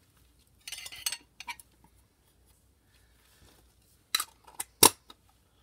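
Magnetic slime squished between the fingers, giving a short crackly, popping burst about a second in. Near the end come three sharp, loud clicks.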